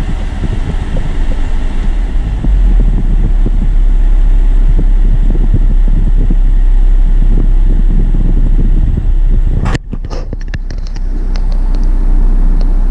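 3.6L LY7 V6 engine of a 2006 Cadillac STS revved with the gas pedal, then let off back toward idle, with a sharp dip in level about ten seconds in. The engine runs lean at idle, setting codes P2187 and P2189.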